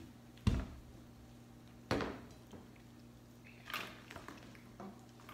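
Two sharp knocks about a second and a half apart, the first with a heavy low thud, then a softer brief rustle near the end, over a steady low hum.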